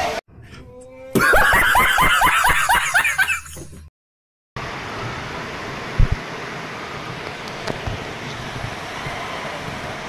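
A burst of laughter, rapid repeated breathy peals, for about two seconds. After a sudden cut comes the steady rush of a shallow stream running over rocks, with a single thump about six seconds in.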